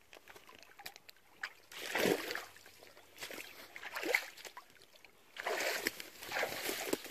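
Water splashing and sloshing in a few irregular bursts as a German wirehaired pointer swims with a large carp held in its mouth.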